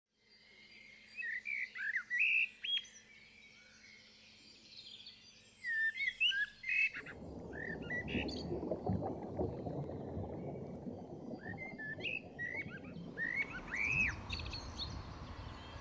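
Songbirds singing in short phrases of chirps and whistles, with pauses between them. About seven seconds in, a steady low rushing noise starts underneath and carries on.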